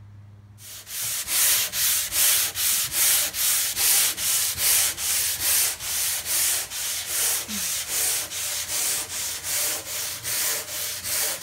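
Hand sanding of a walnut countertop with sandpaper on a handled sanding block: fast, even back-and-forth scratchy strokes, about two to three a second, starting about half a second in. The surface is being smoothed before a polyurethane finish.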